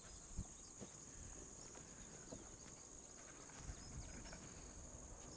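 Faint steady high-pitched drone of insects in the grass, with a few soft thumps, one about half a second in and a couple more near the end.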